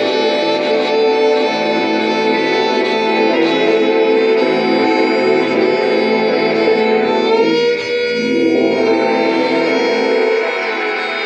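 Improvised music from the Violik de TchalaZak and electronics: layered held tones, with a cluster of high tones that wavers and sweeps in pitch about seven seconds in.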